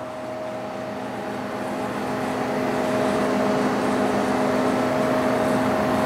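Steady mechanical hum of a motor or engine running, with a few constant pitches over a rushing noise, growing louder over the first few seconds and then holding steady.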